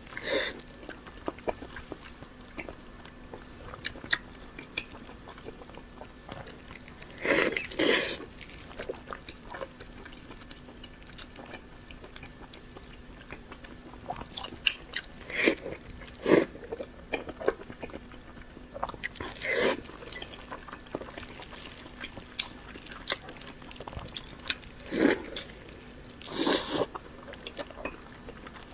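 Close-up eating sounds: biting and chewing a big chunk of pork belly, with small wet mouth clicks and about six louder bites spread through. A faint steady low hum runs underneath.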